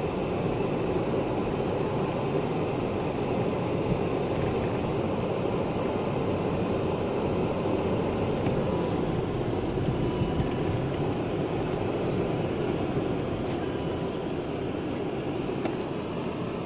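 BMW E36 driven on a snowy road, heard from inside the cabin: a steady rumble of engine and road noise that eases slightly near the end.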